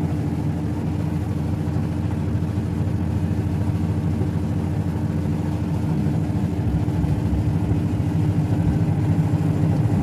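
Mademsa Fuzzy Logic top-load washing machine on its spin cycle, the drum spinning at speed with a steady motor hum while it spins water out of the clothes.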